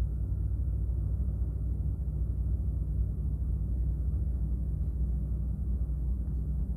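Steady low hum of background noise, with no distinct events.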